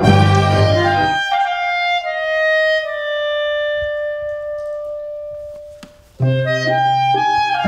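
Orchestral music. The full orchestra plays, then drops away about a second in, leaving a single instrument playing a short falling line that ends on a long held note, which fades almost to nothing. The full ensemble comes back in near the end.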